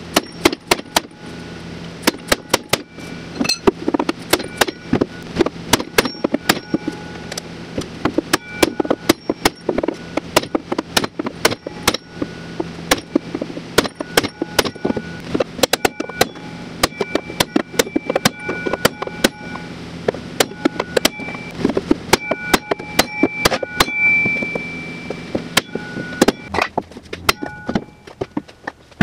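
Heavy hammer blows struck through a wooden block against the crash-bent aluminum tunnel of a 2005 Ski-Doo Summit Adrenaline snowmobile, beating the chassis straight. The strikes come in a rapid, uneven series with a ringing tone after many of them, and ease off near the end.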